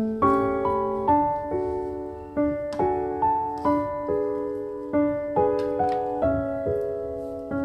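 Background piano music: a slow melody of single notes struck one after another, each fading away before the next.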